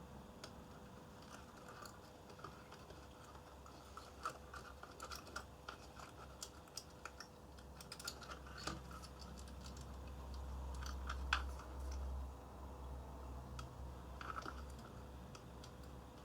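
Scattered small clicks, ticks and scrapes of hand tools working at a circuit board while a piggybacked DIP chip is taken off its soldered wire-wrap wires. A low hum swells for a couple of seconds past the middle, with the sharpest click at its height.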